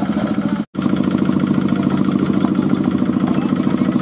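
An engine running at a steady speed with a fast, even pulse. It cuts out for an instant a little under a second in, then carries on unchanged.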